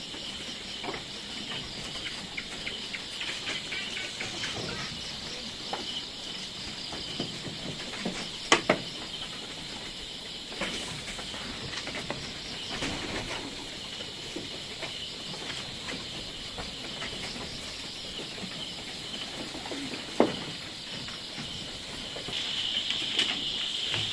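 Steady high chirring of insects, with a few sharp wooden knocks from goats jostling at a wooden feed rack and slatted pen floor as they eat.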